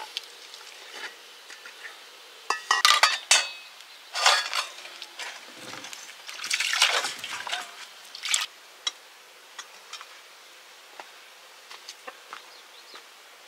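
Water splashing and sloshing in a few short bursts, with light clinks of metal pots and utensils; after about nine seconds only a few scattered small clinks.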